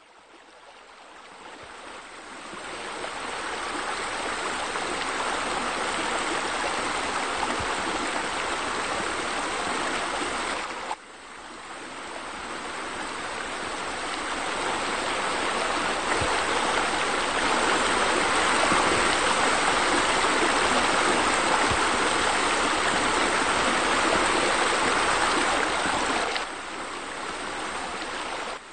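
Steady rush of water from a rock waterfall spilling into a swimming pool. It fades in over the first few seconds, breaks off briefly about eleven seconds in, and drops to a lower level near the end.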